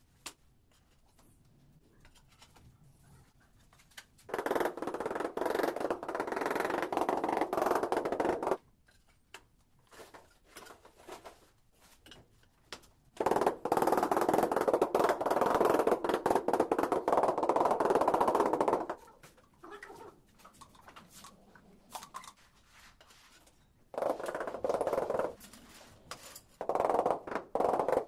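Rubber mallet tapping rapidly on ceramic floor tiles to bed them into wet mortar. It comes in four runs of quick strikes: a long run about four seconds in, a longer one about halfway, then two shorter ones near the end, with short pauses between.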